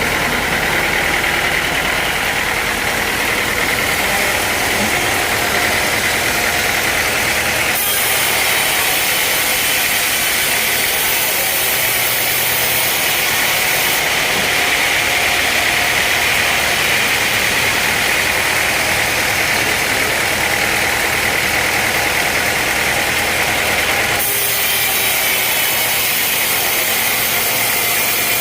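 Sawmill machinery running steadily: an engine with a bright, hissing sawing sound on top from about eight seconds in until a few seconds before the end.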